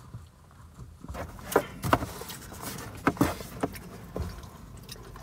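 Handling of a cardboard shoebox and the sneakers taken out of it: a handful of short sharp knocks and rustles, starting about a second and a half in.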